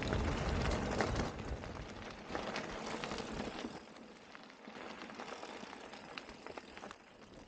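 Electric mountain bike tyres crunching and crackling over a loose, stony dirt track, with small rattling clicks. Wind rumbles on the microphone for the first few seconds, then drops away.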